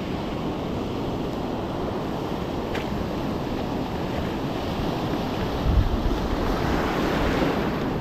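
Surf breaking and washing up the beach, with wind buffeting the microphone. A wave swells louder about three-quarters of the way in.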